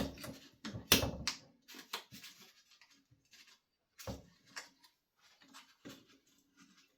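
Scattered light clicks and knocks of hands working on a leaf blower's ignition coil, pulling the coil away from the flywheel to set its air gap.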